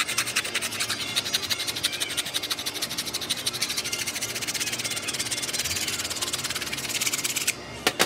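Hand tool scraping a wooden spoon handle in rapid, even strokes, several a second, stopping near the end, followed by a sharp click.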